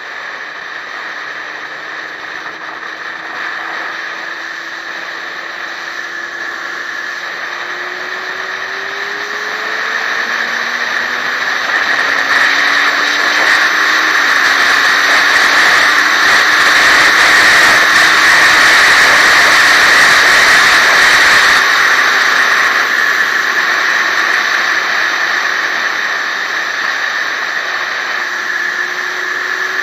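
Motorcycle riding at speed on an open road: wind rushing over the microphone, building to its loudest in the middle and easing toward the end, with the engine note climbing as the bike accelerates through the gears.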